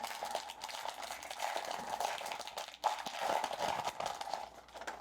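Trading cards and their foil pack wrapper being handled: a continuous crinkling rustle with small clicks and scrapes.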